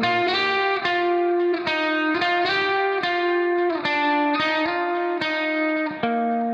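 Background music: a melody of plucked guitar notes, one note every half second or so.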